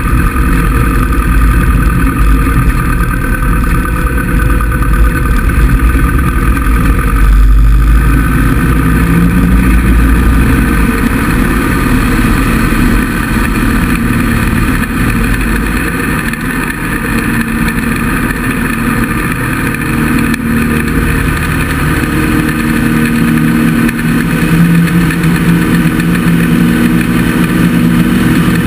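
Small single-engine airplane's piston engine and propeller running steadily while taxiing, then the engine note climbs as power comes up for the takeoff roll in the last several seconds.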